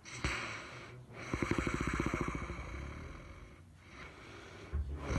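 Snoring: a breath, then a long fluttering snore about a second in that fades away, and another snore starting near the end.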